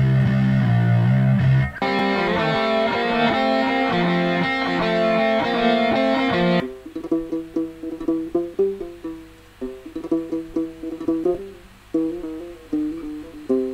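Guitar loops from the Logic Pro X loop library previewed one after another. After a heavier loop gives way about two seconds in, a dense rock guitar loop plays until it cuts off suddenly about halfway through. A sparse plucked Egyptian lute loop follows, picking out a melody note by note.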